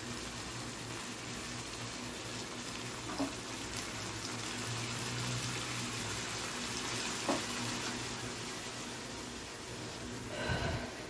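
Steady hiss with a low hum from a kadai of chicken masala cooking on a gas stove, with two light clicks about three and seven seconds in. A short ringing tone comes near the end.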